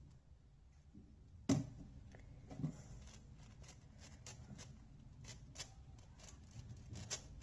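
Outer layers of a 6x6 puzzle cube being turned by hand, a string of faint plastic clicks. A louder click comes about a second and a half in, and the turns get quicker, several a second, in the second half.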